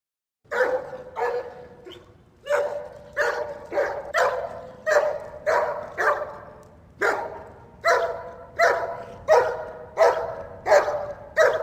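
German Shepherd barking repeatedly, about one and a half barks a second, in three runs with brief pauses between them.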